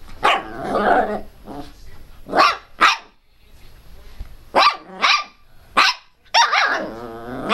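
Miniature pinscher growling, then giving a string of short, sharp barks, about half a dozen, with a longer drawn-out bark near the end.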